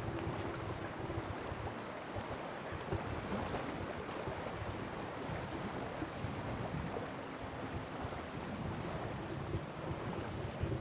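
Wind rumbling and buffeting on the microphone over a steady outdoor rush.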